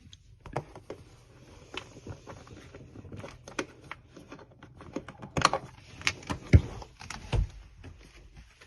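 Irregular clicks and knocks of hands handling the Litter-Robot 4's plastic unit and unplugging its power cord, with a few sharper knocks in the second half.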